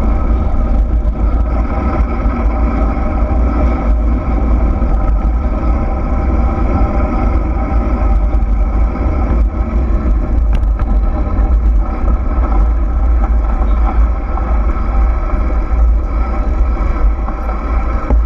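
Wind buffeting the microphone of a moving camera during a fast descent, over a steady rolling hum. The sound stays even, with no changes in pitch.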